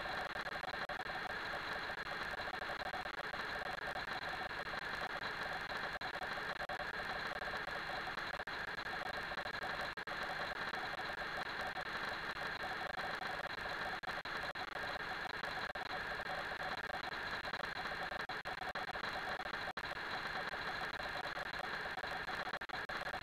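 A steady, even hiss with a faint whine in it that doesn't change, and no distinct knocks or voices.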